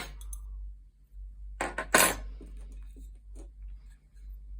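Metal lock keys clinking as they are picked up and handled, with two sharp clinks about a second and a half to two seconds in and a few light ticks around them.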